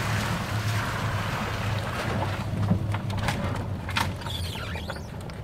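Small open-sided vehicle driving slowly along a street: a steady low drone of the drive, with wind buffeting the microphone and a few knocks and rattles about three to four seconds in.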